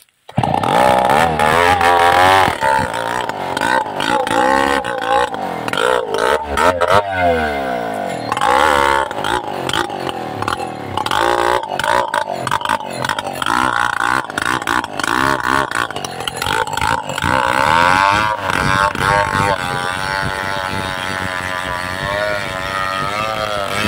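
Chainsaw running hard, cutting into a large rain tree trunk. It starts abruptly just after the start, and its pitch sags and picks up again several times, most deeply about seven seconds in.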